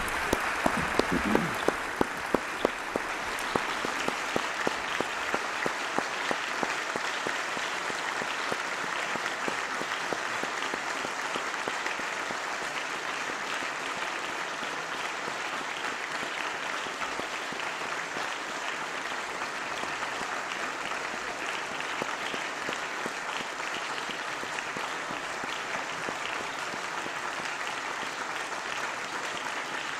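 A chamber of parliamentarians applauding steadily after a speech. In the first several seconds a few loud, sharp claps from someone close by stand out, at about three a second, over the dense clapping of the room.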